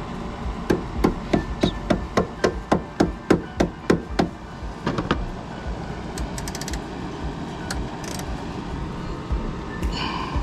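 Hand hammer striking in a steady run of about fifteen blows, roughly three a second, that stops about halfway through. The blows are to work loose 10 mm hood-bracket bolts held fast by paint.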